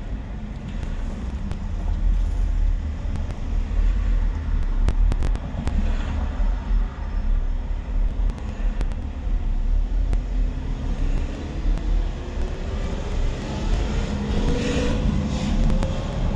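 Street traffic going by, a steady low rumble, with one vehicle's engine rising in pitch as it speeds up in the second half and a brief swell of tyre hiss near the end.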